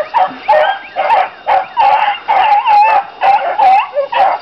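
A pack of beagles baying as they run a scent trail, several dogs calling over one another in repeated bawls, about two a second.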